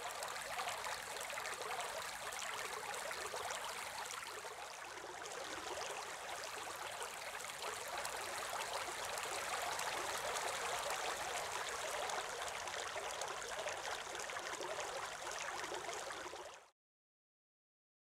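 Water falling from a fountain into a pond: a steady splashing hiss that cuts off suddenly near the end.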